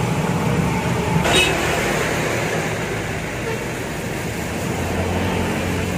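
Steady road traffic noise with a motor vehicle's engine running, and a brief click about a second in.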